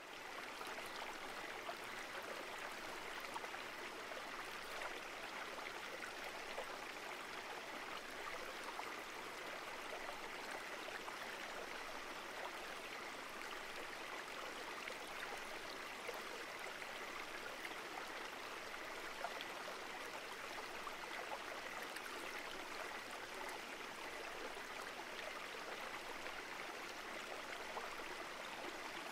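Steady rush of flowing river water, even throughout, with a faint steady high note running through it.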